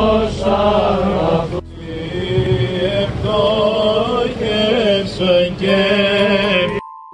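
Byzantine liturgical chant: voices singing a winding melody over a steady held drone note. The sound changes abruptly about one and a half seconds in, as at an edit, and cuts off just before the end.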